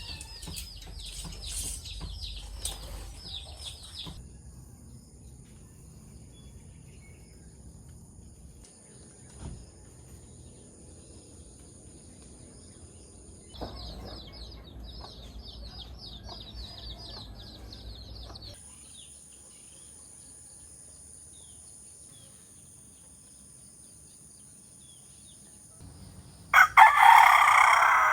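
A rooster crowing once, loud and long, near the end, its call falling in pitch as it finishes. Earlier there are two stretches of rapid high chirping from small birds over a low rumble.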